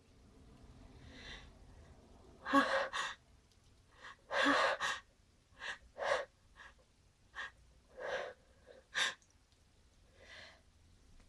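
A person's sneeze buildup: a run of short, sharp gasping breaths, the two loudest about two and a half and four and a half seconds in, then shorter ones more spread out.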